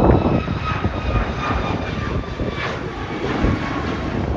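Airliner engines running, with a whine that falls slightly in pitch over a deep, steady rumble.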